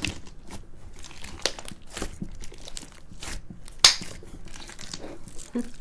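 A large mass of mixed slimes with perlite and pony beads in it being kneaded and folded by hand, giving irregular crackling and squishing clicks, with one sharper snap a little before four seconds in.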